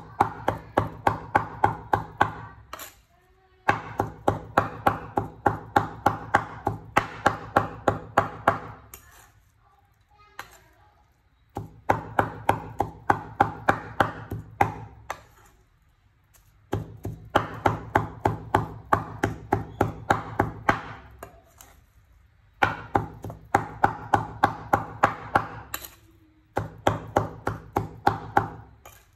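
Steel meat cleaver chopping raw pork on a wooden cutting board, mincing it by hand. The strikes come in quick runs of about four a second, broken by short pauses.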